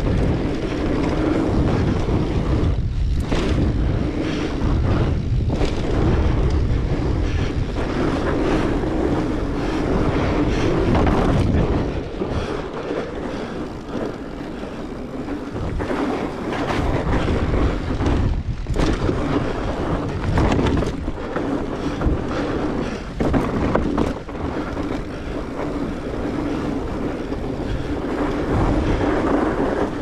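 Fat bike's studded tires rolling over a packed-snow trail, a continuous rumble with a steady hum and frequent short knocks and rattles, mixed with wind buffeting the action-camera microphone.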